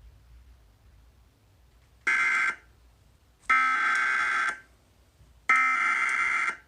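Emergency Alert System SAME header: three bursts of digital data tones, the first about half a second and the next two about a second each, spaced a second apart. This coded header opens an EAS alert and carries its event type, area and time.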